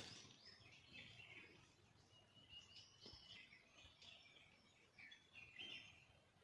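Faint, high chirping and twittering of birds, many short calls overlapping throughout.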